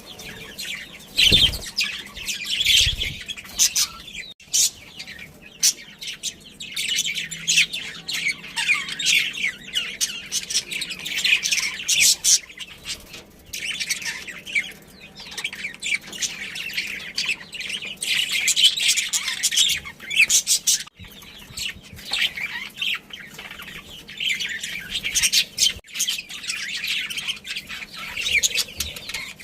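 A group of budgerigars chirping and chattering, a dense, fast stream of high chirps and warbles that rises and falls in busy spells.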